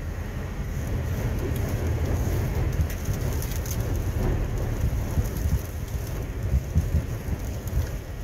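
Strong windstorm wind buffeting the vehicle and microphone: a heavy, continuous low rumble with scattered faint ticks.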